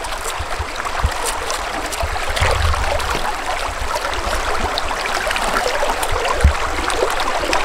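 Flowing river water, a steady rushing.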